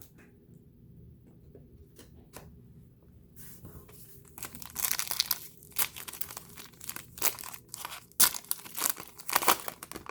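Trading card pack wrapper being torn open and crinkled by hand, in irregular sharp crackles that start about a third of the way in after a few faint clicks.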